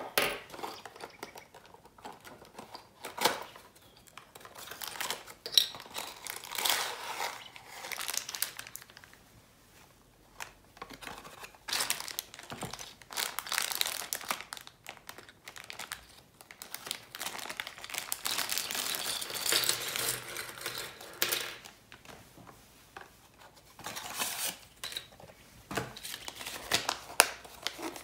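Unboxing handling noise: a thin cardboard box being opened, then a clear plastic bag of small plastic model-gun parts being crinkled and torn open, with the pieces clattering onto a wooden tabletop. The crinkling comes in bursts with short quiet pauses between them.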